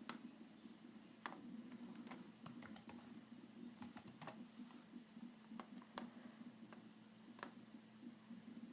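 Faint, irregular clicks of a computer keyboard being typed on, a dozen or so scattered keystrokes, over a low steady hum.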